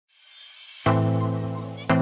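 Intro music: a rising, airy swell, then a sustained chord struck just under a second in, and a second chord struck near the end.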